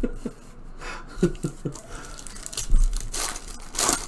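Sealed trading-card packs being handled, with a brief rustle of the wrappers about three seconds in and a few faint murmurs before it.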